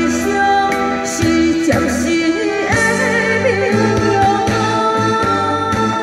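Amplified singing through handheld microphones: a woman and a man sing a duet over a backing track with a steady beat.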